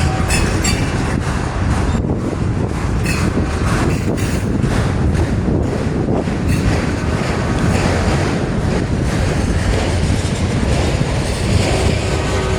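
Freight cars of a manifest train rolling past at close range: a steady loud rumble of steel wheels on rail, with irregular clicks as the wheels cross rail joints.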